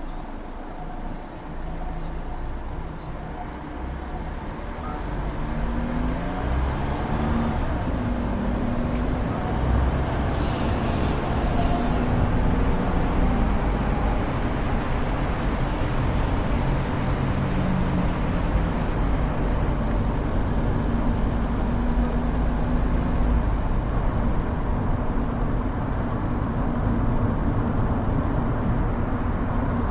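City traffic and road noise from a moving car: a steady rush of tyres and engines, with the hum of nearby vehicles rising and falling, growing louder over the first several seconds. Two short high-pitched squeals cut through, one near the middle and one about two-thirds of the way in.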